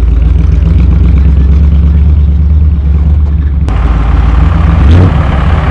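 Truck engine running at low speed, a steady low hum heard from inside the moving cab. About two-thirds of the way in the sound cuts to a truck engine running close by outside, with a brief rise in pitch a second later.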